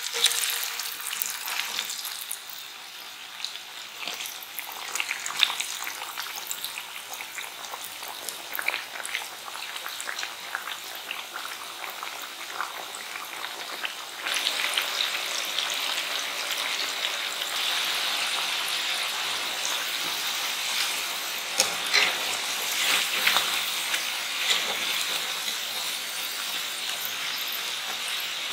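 Corn-starch-coated potato sticks deep-frying in oil at 160°C: a steady, dense crackling sizzle that gets louder about halfway through, with a few sharp clicks in the second half.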